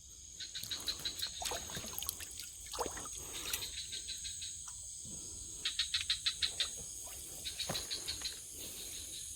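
Night-time chorus of insects and frogs by a river. A steady high-pitched insect drone is broken by several groups of rapid clicking calls, about eight a second.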